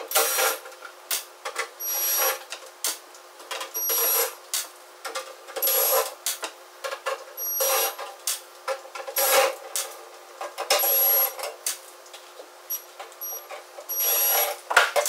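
Cordless drill-driver backing out the screws of a sheet-metal grinder back panel, running in short bursts of under a second every couple of seconds. Sharp clicks and knocks come between the bursts.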